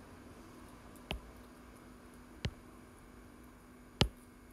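Stylus tapping on a tablet's glass screen: three sharp taps about a second and a half apart, the last the loudest, over a faint steady hum.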